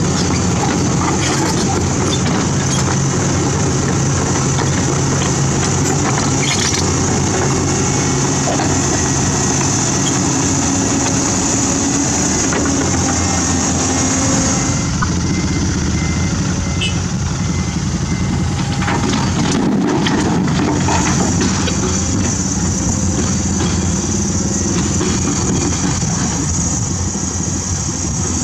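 CAT 320D hydraulic excavator's diesel engine running steadily under work, with a high hiss over it that drops out for a few seconds about halfway through.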